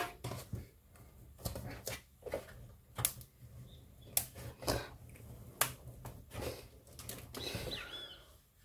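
Irregular sharp clicks and knocks of plastic and metal parts of a computer power supply being handled and pressed into place during reassembly.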